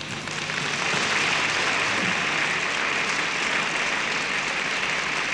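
Large audience applauding steadily at the end of a song.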